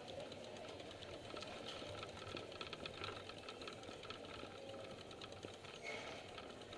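Covered shopping-street ambience heard while walking: a fast, steady rattling tick close to the microphone over a faint low hum.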